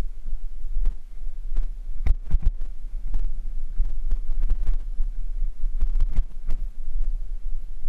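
Bicycle rolling over a rough dirt-and-gravel trail: a steady low rumble of wind and vibration on the bike-mounted camera, with irregular knocks and rattles as the wheels jolt over stones and roots, the strongest cluster about two seconds in.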